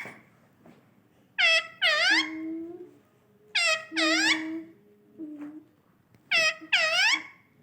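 Indian ringneck parrot calling: three pairs of loud, shrill screeches, each call dipping then rising in pitch, the two calls of a pair in quick succession.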